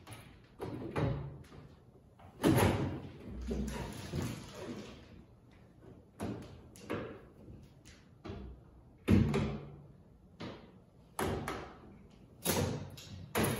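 Steel tool-cabinet drawer being worked back onto its ball-bearing drawer slides: repeated sharp metal clacks and knocks at irregular intervals as the drawer's slides are lined up with the cabinet's slides.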